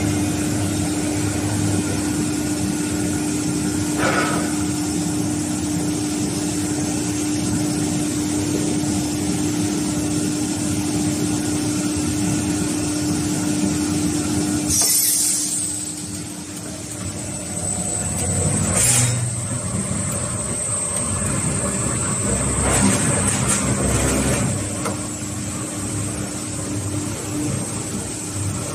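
Plastic pipe cutting machine on an extrusion line running with a steady hum. About halfway through, the hum stops with a sharp hiss of air from its pneumatic clamp cylinder. A second air hiss comes a few seconds later, followed by a short run of knocks and clatter.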